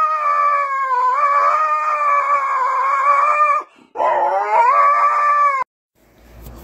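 Husky howling: one long, held howl, a short break, then a second, shorter howl that rises in pitch at its start. The howling cuts off suddenly about a second before the end.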